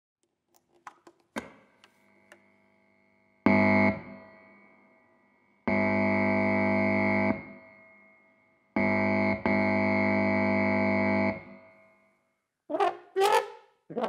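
Loud electric buzz from touching the tip of a live guitar cable's jack plug, run through a distortion pedal into the amplifier: a few small handling clicks, then three bursts of steady hum that cut in and out abruptly.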